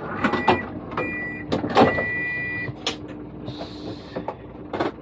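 Cabin of a Dual Mode Vehicle minibus standing with its engine idling as a steady low hum. An electronic beep sounds twice, about a second in and again for nearly a second near the middle, amid several sharp knocks and clunks, the loudest near the middle and one near the end.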